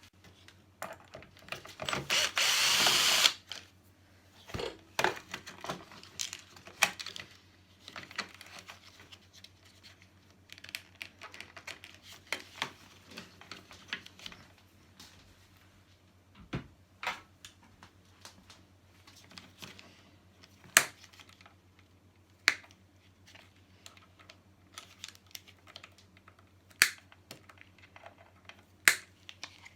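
Table saw being dismantled by hand: metal parts and tools click, clink and knock at irregular intervals. About two seconds in, a power tool runs in a short burst of a second or so.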